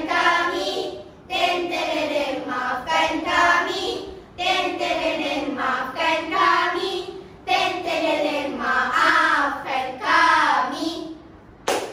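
A group of schoolchildren singing together in Malay, in four phrases with short breaks between them. A sharp click comes near the end.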